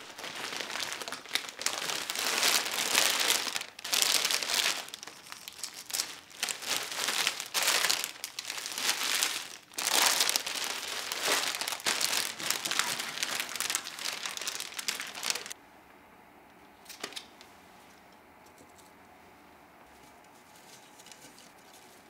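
Clear plastic flower-bouquet wrapping crinkling and crackling as it is handled, in irregular bursts, stopping abruptly about fifteen seconds in; a brief faint rustle follows shortly after.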